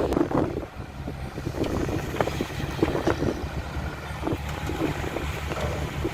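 Diesel engine of heavy earthmoving machinery running steadily, with irregular clanks and knocks over the low drone.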